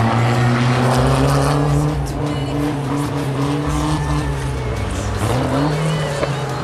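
Suzuki-bodied off-road race car's engine running hard on a dirt track, its pitch rising and falling as it is driven. The pitch drops sharply about five seconds in, then climbs again.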